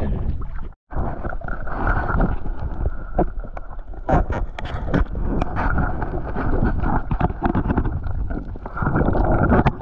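Water splashing and dripping at the waterline beside a boat's hull. After a brief dropout about a second in, it gives way to the muffled underwater rush and bubbling heard by a submerged camera, with scattered sharp clicks.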